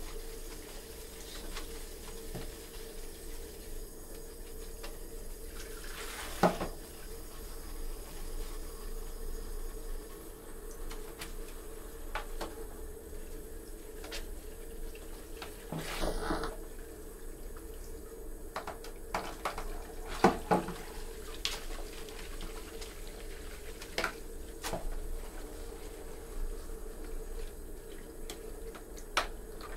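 Water running from a handheld shower head into a plastic basin and over a wet poodle's coat, steady throughout, with a few short sharp splashes scattered through it.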